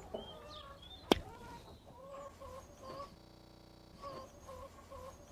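Chickens clucking: short calls repeating every half second or so, with one sharp click about a second in.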